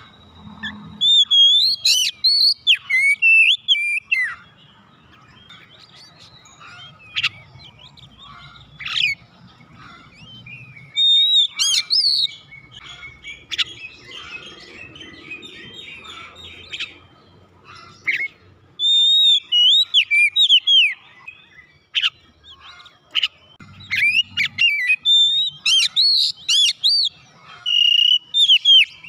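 Oriental magpie-robin singing: spells of loud, varied whistled phrases with quick up-and-down glides, with softer twittering in between.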